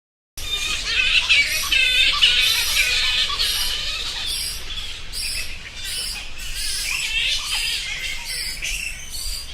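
Many flying foxes screeching and chittering at once: a dense, overlapping chorus of high calls that starts suddenly about half a second in.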